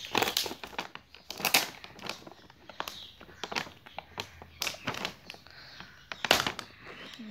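Clear plastic packaging crinkling and crackling in the hands as the sealed packet is opened, in irregular rustles with a few sharper crackles, the loudest about a second and a half in and near the end.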